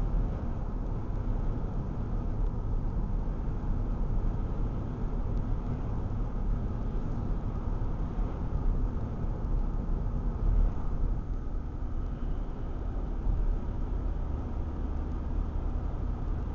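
Steady low rumble of road and engine noise heard inside a car's cabin while driving at motorway speed.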